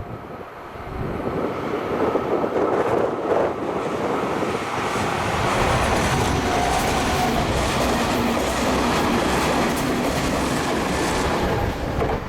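A Meitetsu Nagoya Main Line electric train passes through the station without stopping. The rumble and wheel noise build over the first couple of seconds, hold steady with a faint whine in it, then fall away sharply just before the end.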